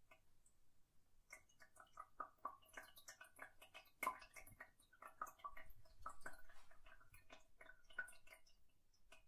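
Faint, irregular dripping and plinking of water in a toilet, a string of small drops and gurgles as the flush settles.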